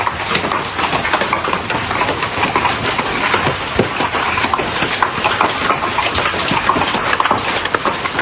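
Hailstones pelting hard surfaces: a dense, continuous clatter of many irregular impacts.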